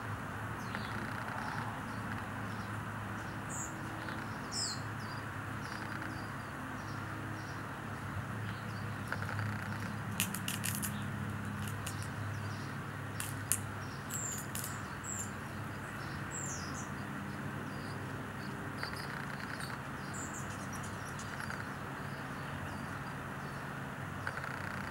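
Outdoor ambience: a steady low background hum with short, high bird chirps scattered throughout, and a few sharp clicks about ten and thirteen seconds in.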